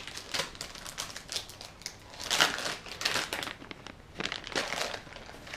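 Plastic bag of soft-plastic fishing baits crinkling as it is handled, in irregular crackles, loudest a little over two seconds in.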